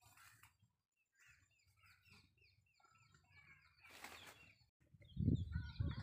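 Small birds chirping in quick, repeated short falling notes, several overlapping. About five seconds in, loud low rumbling of wind buffeting the microphone starts and covers them.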